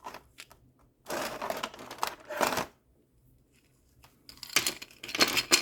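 Plastic bag crinkling and rustling in two stretches, with a few small clicks, as a bag of toy accessories is opened and rummaged through.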